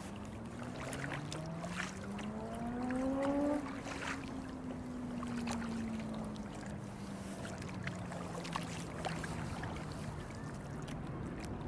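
Double-bladed kayak paddles dipping and splashing in the water, irregular strokes. Under them a motor's hum climbs in pitch and grows loudest about three and a half seconds in, then slowly sinks in pitch.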